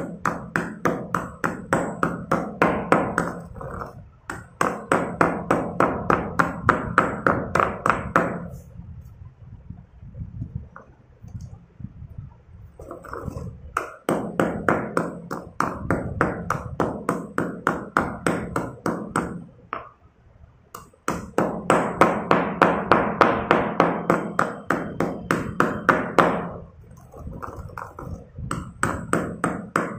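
A pestle pounding chalk pieces in a stone mortar, crushing them with quick, crunchy strikes about four or five a second. The strikes come in runs, with a few short pauses where only softer grinding is heard.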